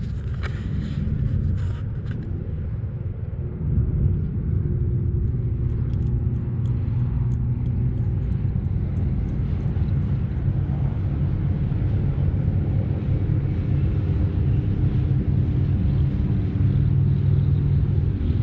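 A steady low rumble with a faint steady hum in it. In the first two seconds, handling knocks and rustle from the camera being held.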